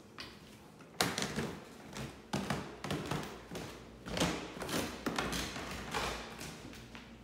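Footsteps going down an indoor staircase: a run of thuds, about two a second, starting about a second in.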